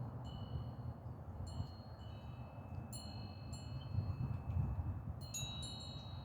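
Wind chimes tinkling: clear high metal tones struck a few times, each cluster ringing on for a second or more.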